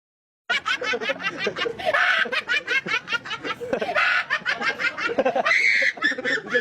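A person laughing in quick, repeated snickering bursts, starting about half a second in after a moment of dead silence.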